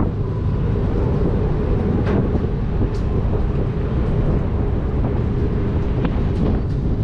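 Steady low rumble of wind buffeting the microphone high up on an open-air observation deck, with a few faint short high chirps.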